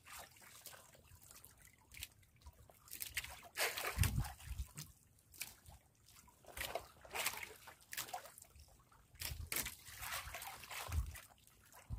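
Sea water lapping and splashing against the hull of a small wooden outrigger boat, coming in irregular bursts with a few low thumps.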